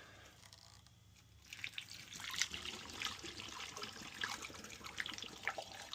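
Water being poured down a furnace's condensate drain pipe to flush out a clog, trickling and splashing unevenly, starting about a second and a half in.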